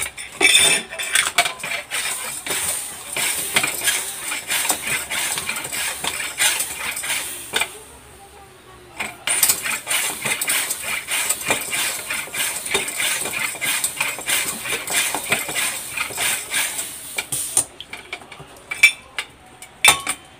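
Water sloshing and splashing in a plastic basin as an inflated inner tube is pushed under and turned, checking the fresh patch for leaks. Two busy stretches with a short lull about 8 seconds in, then a few single splashes near the end.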